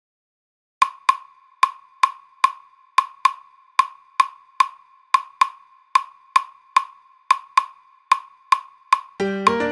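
Claves tapping a repeating salsa clave rhythm, sharp ringing clicks of one pitch, about five strokes every two seconds, as the intro to a salsa track. Near the end the full salsa band comes in.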